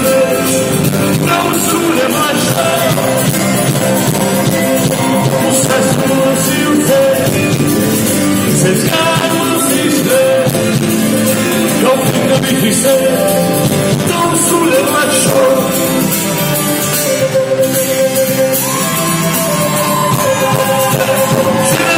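Live band performance: a man singing with acoustic guitar, backed by electric guitar and drums.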